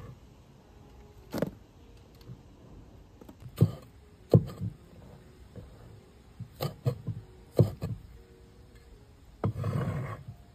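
Knife knocking on a cutting board in irregular strokes while finely slicing taro stalks, with a longer noisy scrape near the end.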